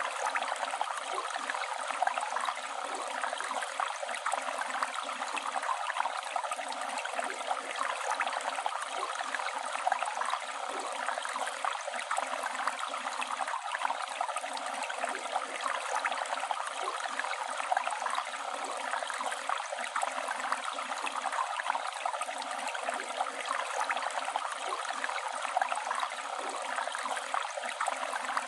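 Flowing river water running steadily, a continuous even rush with a fine splashing, gurgling texture.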